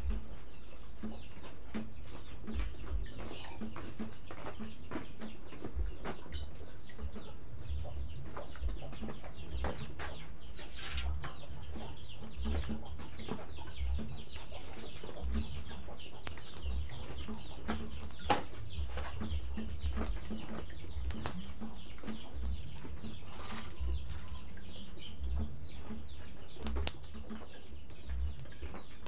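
Chickens clucking and chicks peeping close by, over a steady background of dense crackles and clicks.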